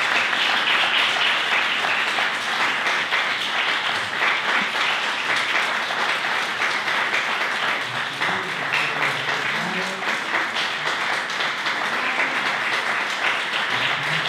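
Audience applauding steadily, a dense sustained round of clapping.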